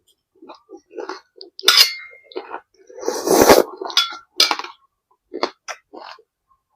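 Eating utensils clinking and knocking against dishes in a run of short, separate sounds. The louder clatters come about a second and a half in and again about three seconds in.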